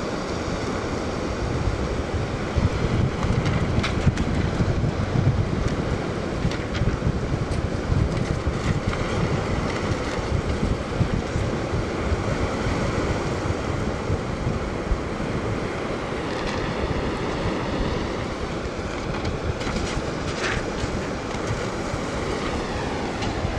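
Sea wind gusting across the microphone over small waves washing onto a sand beach: a steady rushing noise with an uneven low buffeting from the gusts.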